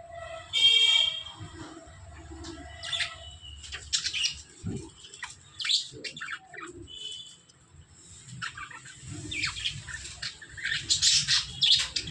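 Birds chirping and calling: a loud, harsh call about a second in, then many short chirps that are busiest near the end.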